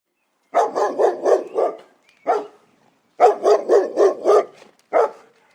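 Dog barking in two quick runs of short barks, about four a second, with single barks between.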